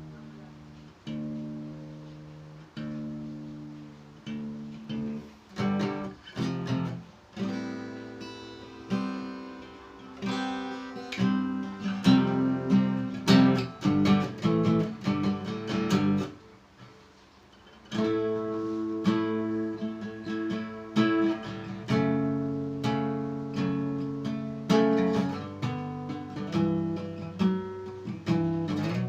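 D&D Django Jr. mahogany acoustic guitar being played in drop D tuning: chords struck and left to ring. There is a short pause a little past the middle before the playing resumes.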